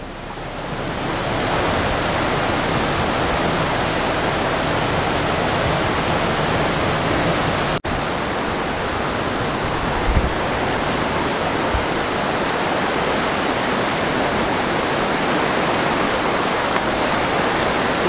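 Rushing water of a rocky stream tumbling white over boulders, a steady hiss with a momentary break about eight seconds in.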